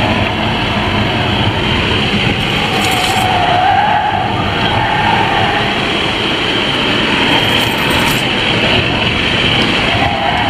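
A car driven hard around a race circuit, heard from inside the cabin: steady engine and road noise, with the engine note rising and falling through the corners.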